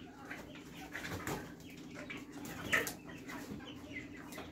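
Chickens clucking now and then, with one louder call about three seconds in, over a steady low hum.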